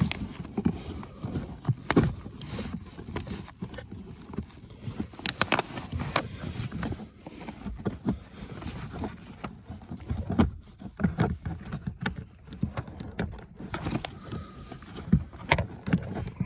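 Irregular plastic clicks, taps and rustling as a cabin air filter is squeezed and pushed into its housing.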